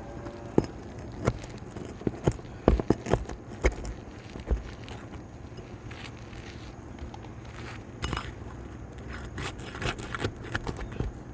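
Irregular sharp taps, metallic clinks and scrapes of a hand tool prying asphalt roof shingles loose, coming in a busy run over the first few seconds and again near the end.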